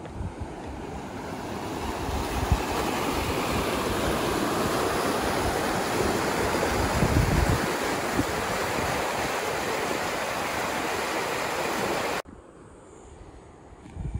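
Pedernales River rushing through a narrow channel between limestone ledges: a steady rush of water that builds over the first two seconds, with wind buffeting the microphone. It cuts off suddenly near the end.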